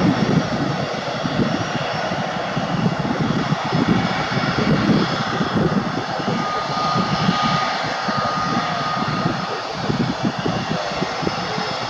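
An Airbus A320neo's CFM LEAP-1A turbofans running at low taxi thrust as the jet turns on the runway, a steady jet rush with a fluctuating low rumble. A thin whine comes in about six seconds in, as the engines face the microphone, and fades near ten seconds.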